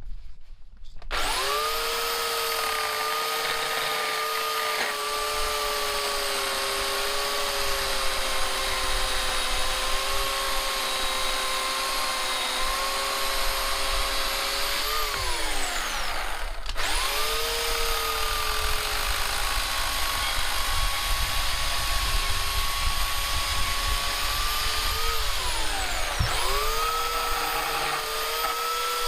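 Bauer corded electric chainsaw motor running with a steady whine. It winds down twice, about halfway through and near the end, falling in pitch, and each time it speeds straight back up.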